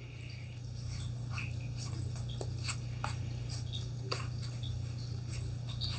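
Playing cards being handled and turned over one at a time: a scatter of soft, irregular clicks and light slides, over a low steady hum.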